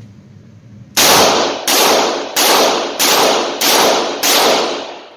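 Rock Island AL9.0 9mm revolver fired six times double action, starting about a second in, the shots about two-thirds of a second apart. Each shot rings off in the reverberation of an indoor range.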